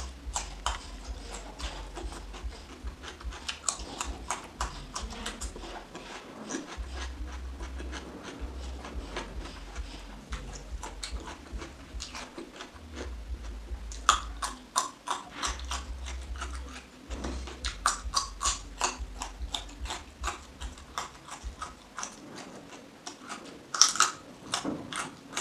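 Raw cucumber and carrot sticks being bitten and chewed: a long run of crisp crunches, densest past the middle, with one loud bite near the end.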